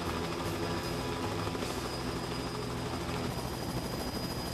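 Helicopter hovering low, its rotor and engine running steadily, with a thin high whine on top.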